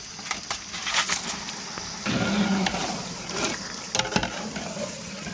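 Boiled meat pieces tipped from a perforated aluminium colander into a large pot of curry gravy, sliding off the metal and plopping into the gravy with scattered clicks and crackles.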